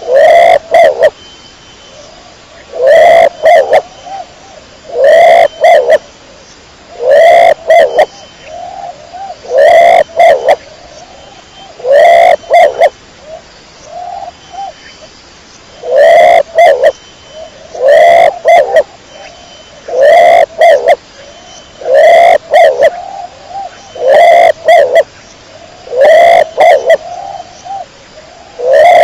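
Domestic pigeon cooing loudly: a call of about a second repeated roughly every two seconds, with a longer gap around the middle.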